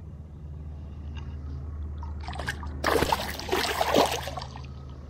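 A hooked spotted seatrout thrashing at the surface beside a small boat: a run of loud splashes about three to four seconds in, over a low steady hum.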